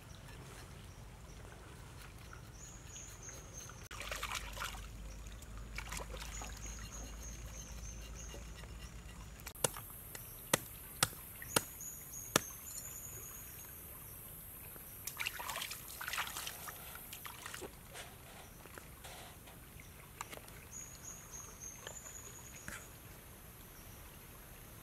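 Shallow stream water sloshing and splashing as a snake's body is rinsed and handled in it, with a louder splashy stretch about four seconds in and again around fifteen seconds. Between about ten and twelve seconds come five sharp clicks in quick succession, and faint short high chirps recur in the background.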